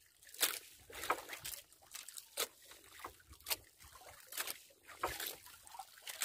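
Seawater sloshing and slapping against the hull of a small drifting outrigger boat, in irregular splashes every half second to a second.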